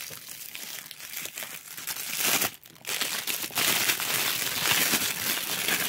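Thin clear plastic bag crinkling and rustling as it is unwrapped from a plastic sipper bottle, soft at first and louder from about two seconds in.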